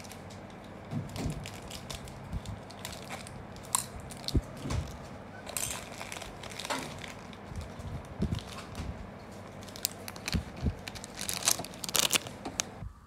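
Plastic snack packaging crinkling and rustling as it is handled, a string of irregular crackles and snaps.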